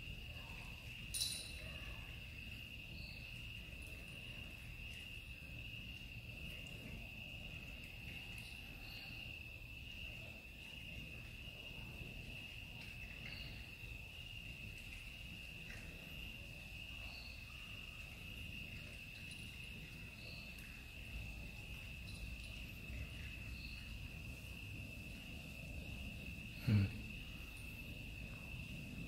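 Crickets trilling steadily on one high note throughout, with faint crunching of two cats eating dry kibble off a tiled floor. A sharp click sounds about a second in and a short thump near the end.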